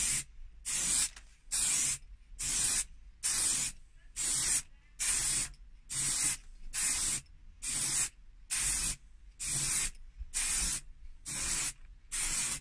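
Aerosol can of metallic car spray paint hissing in a steady run of short bursts, about half a second each with brief gaps between. Each burst is one sweep of a top coat across a plastic dash panel, the nozzle released between strokes.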